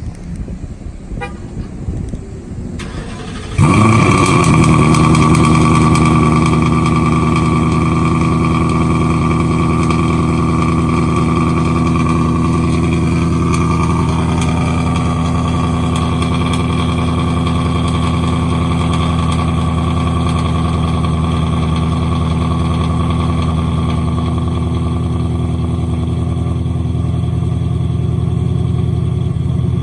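2015 Mustang GT's V8, breathing through long-tube headers and stock mufflers, starts about three and a half seconds in. It flares briefly, then settles into a steady, loud idle.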